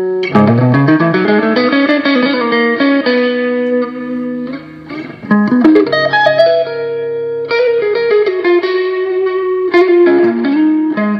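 1978 Greco Les Paul electric guitar with Blues Engine PAF-type humbuckers, played through a small NUX Mighty Air amplifier. The lead line opens with a quick rising run, then moves into long held and bent notes, with a brief quieter moment near the middle.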